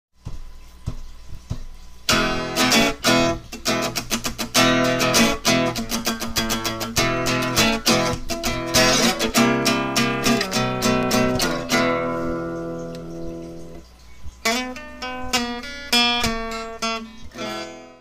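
Acoustic guitar music, plucked and strummed. A few soft notes open it, fuller strumming starts about two seconds in, a held chord dies away around twelve to fourteen seconds in, then more picked notes follow and fade near the end.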